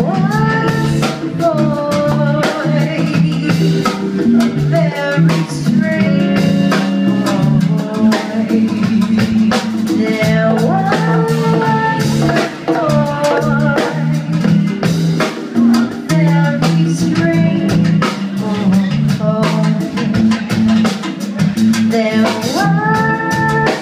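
Live band playing: a drum kit keeps a busy beat under a steady bass line, while a lead melody glides between held notes.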